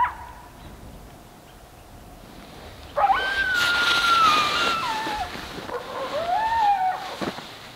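Coyotes howling: a long howl about three seconds in that rises, holds and slowly falls, then a second, lower howl that rises and falls a second or so later.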